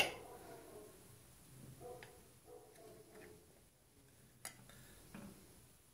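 Table knife clicking against a glass cake plate while cutting a slice of firm carrot cake: one sharp click at the start and a smaller one about four and a half seconds in, with faint soft sounds of the knife working in between.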